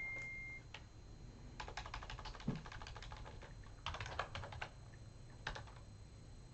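Keyboard typing: quiet, rapid keystroke clicks in three bursts, the first two about a second long and the last one short.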